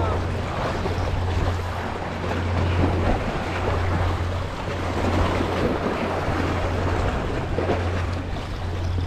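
Wind buffeting the microphone with a steady low rumble, over sea surf washing against the rocks.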